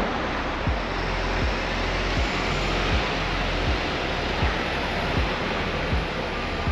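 Steady wash of city street noise, with low thuds of the walker's own footsteps at an even walking pace, about one every three-quarters of a second.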